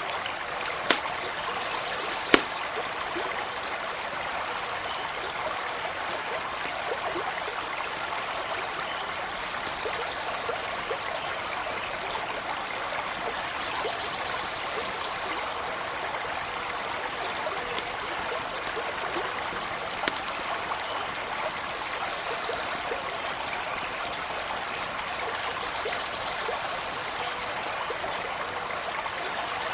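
Stream running steadily, with scattered sharp crackles and pops from a campfire; two loud pops come within the first few seconds and another cluster about two-thirds of the way through.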